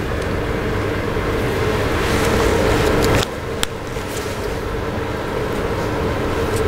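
Steady background rumble with a faint hum, dropping suddenly in level about three seconds in. A single sharp click follows shortly after, as a whiteboard marker is handled.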